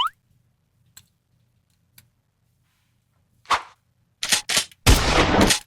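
Edited-in comedy sound effects: a quick rising whistle at the start, two faint ticks, a short hiss, then a few quick clicks and a loud run of noisy bangs in the last second and a half.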